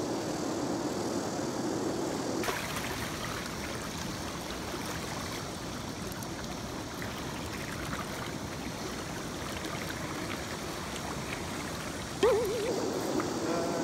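Shallow river riffle rushing over stones around a wading angler, a steady noise of running water. A low hum lies under it for the first two seconds, and about twelve seconds in a sudden loud wavering sound cuts in.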